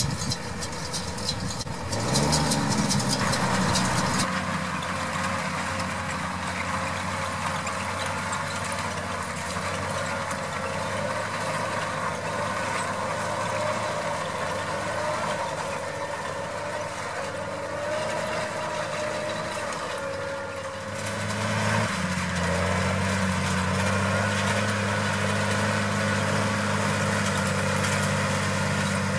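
Case IH tractor's diesel engine running steadily at working revs, with a brief rise in revs about two seconds in and abrupt changes in the engine note about four seconds in and again near the end.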